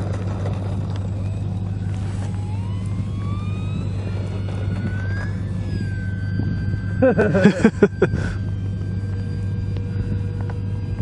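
Motor and propeller of a radio-controlled Pilatus PC-6 Porter model plane whining, its pitch rising steadily for a few seconds as it throttles up to climb away, then holding steady. A short, loud burst of noise cuts in about seven seconds in.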